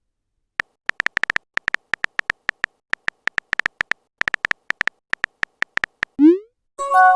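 Rapid, irregular electronic typing clicks of a messaging app's keyboard, followed about six seconds in by a quick rising tone and then a short chime of several steady tones near the end, like a message being sent and a reply arriving.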